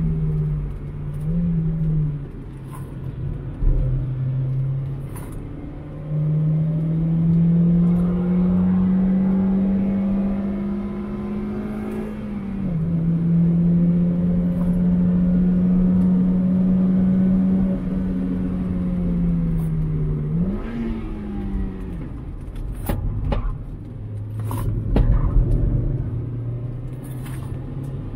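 2001 Mazda MX-5 1.8's four-cylinder engine driven hard on track: revs climbing, a sudden drop in pitch about halfway as it shifts up, then easing off and a quick rev blip on a downshift. Several sharp knocks near the end.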